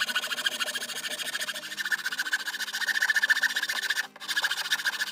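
Hacksaw blade cutting through plywood in fast back-and-forth strokes, a quick steady rasping. It breaks off for a moment about four seconds in.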